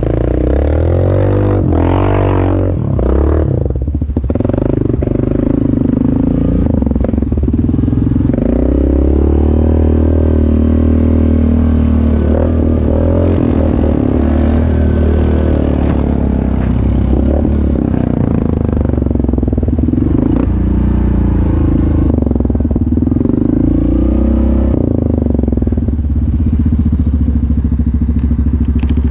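2021 Yamaha Grizzly 700 ATV's single-cylinder four-stroke engine, fitted with a slip-on exhaust, running under way with its pitch rising and falling as the throttle changes.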